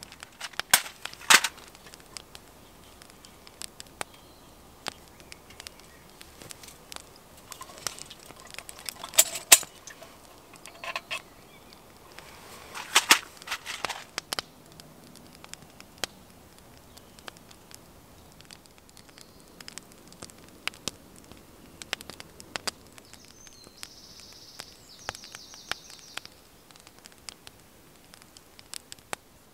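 Wood fire crackling, with irregular sharp pops and snaps, a few loud ones in the first half.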